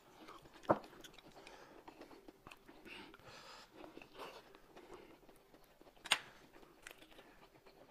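Faint close-up eating sounds: chewing and biting into a food wrap, with two sharp clicks, one just under a second in and one about six seconds in.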